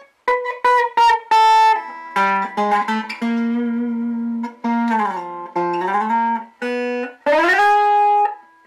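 Epiphone Dot semi-hollow electric guitar played on its neck pickup with the volume full up and the tone control rolled all the way down: a run of single picked notes and short phrases, with string bends about five and seven seconds in.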